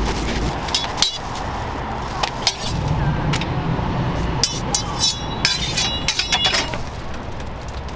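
Street food stall sounds: a steady hum of nearby traffic with repeated sharp clinks and taps of cooking utensils, several of them ringing briefly in a cluster past the middle.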